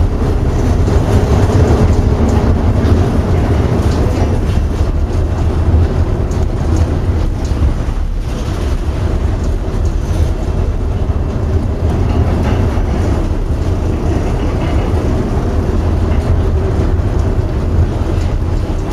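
Storm noise aboard a ship pitching through heavy seas: a loud, steady rumble of wind and breaking waves, deepest in the low end, with no distinct single crashes.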